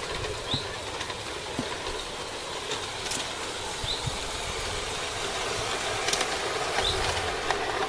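LGB garden-scale model train, an electric model of a Corpet-Louvet 0-3-0 tank locomotive with coaches, running across a wooden trestle bridge: a steady hum of the motor and gears with the rolling of the wheels and a few irregular clicks from the track.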